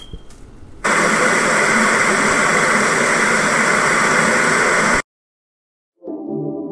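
Loud static-like hiss from an animated logo intro sound effect, lasting about four seconds and cutting off suddenly, followed by a second of silence and then music starting near the end.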